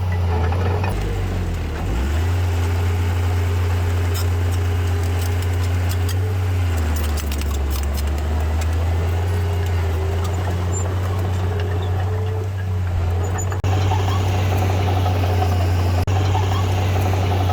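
Diesel engine of heavy earthmoving machinery running steadily, its engine speed dropping and picking up a couple of times, with scattered light clanks.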